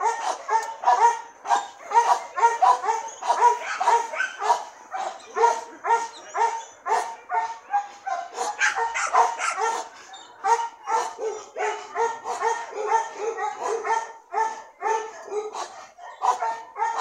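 A medium-sized dog barking over and over in a fast, steady run of about two or three barks a second.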